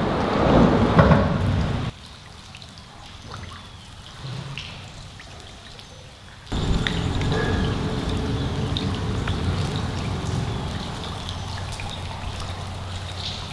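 Rain falling on lake water and dripping, with scattered drip ticks, in three cuts of different loudness: loud at first, quieter after about two seconds, loud again from about six and a half seconds in with a steady low rumble underneath.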